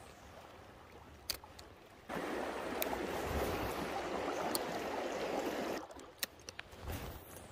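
Rushing stream water, rising sharply to a loud rush for about three and a half seconds in the middle and dropping away just as suddenly, with a few sharp clicks scattered throughout.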